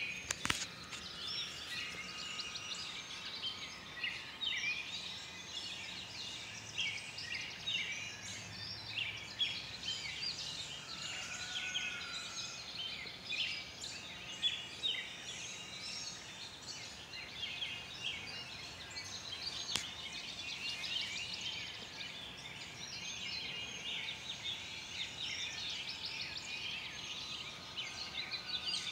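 Dawn chorus: many birds chirping and singing at once, a dense, continuous overlap of short high calls.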